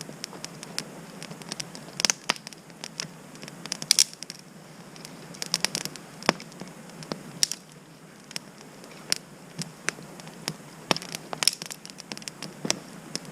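Campfire of wet wood and birch crackling, with irregular sharp pops and snaps over a steady hiss.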